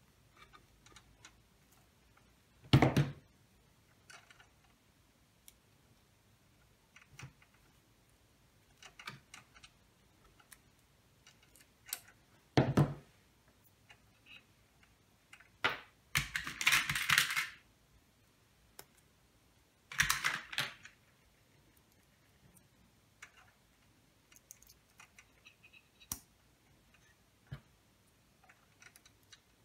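Hand-work noises from wiring inside a tuner chassis: scattered small clicks and taps of pliers, wires and plastic wire connectors. There is a sharp knock about three seconds in and another near thirteen seconds, and short scraping rustles around sixteen and twenty seconds.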